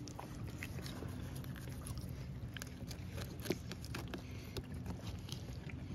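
Fillet knife cutting through a large flathead catfish's skin and flesh behind the gill plate, with wet handling: a run of small irregular clicks and crackles. A steady low hum sits under it.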